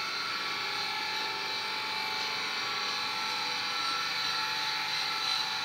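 Steady mechanical drone with a high whine from a running machine, holding even and unchanging throughout.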